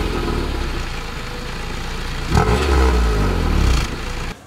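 Honda Civic del Sol's D15B7 four-cylinder engine heard at the tailpipe through a 1320 Performance unequal-length header and the stock muffler. It idles, then gets a quick throttle blip about halfway through that rises and falls back to idle. With the stock muffler the exhaust note stays just as quiet as before the header, and the sound cuts off near the end.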